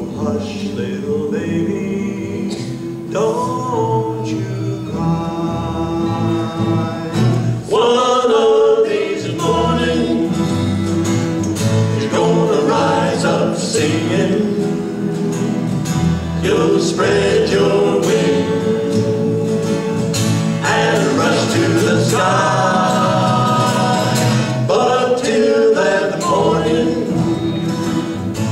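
A male folk vocal group singing together in a slow ballad, accompanied by two strummed acoustic guitars and a plucked upright double bass.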